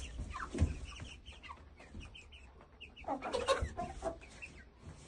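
Chickens clucking in a coop: scattered short clucks, with a busier run of clucking about three seconds in.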